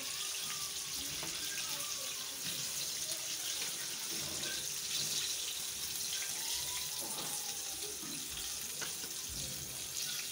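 Chicken pieces deep-frying in hot oil: a steady sizzling hiss of the bubbling oil.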